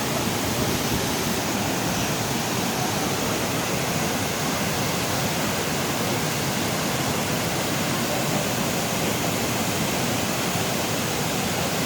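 Düden Waterfall's falling water: a steady, unbroken rush.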